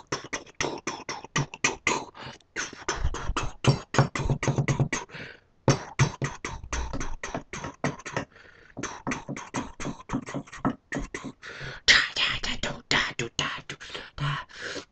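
A person beatboxing with their mouth: fast runs of clicking, hissing percussive strokes, several a second, with deep kick-like thumps in places and a few brief breaks.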